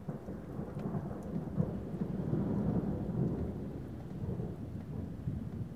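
Thunderstorm: a continuous low rumble of rolling thunder, swelling over the first couple of seconds and then holding steady.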